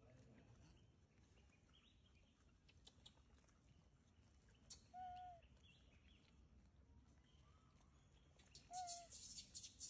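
Two short coo calls from a rhesus macaque, each a brief arched note about half a second long, some four seconds apart, over a faint background. A hissing noise comes in near the end.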